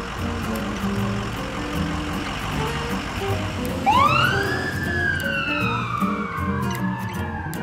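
Background music, joined about four seconds in by an ambulance siren wailing: each sweep rises sharply and then falls slowly, a second sweep overlapping the first.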